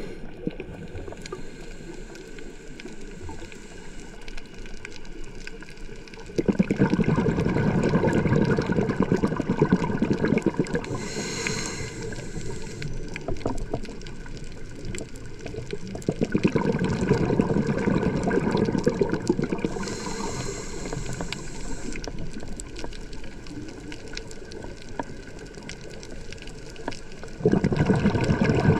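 Underwater reef ambience picked up by a camera in its housing: a steady fine crackle, typical of snapping shrimp on a coral reef, with long rumbling surges of bubbles about every ten seconds, three in all, the rhythm of a diver breathing out through a regulator, each ending in a short hiss.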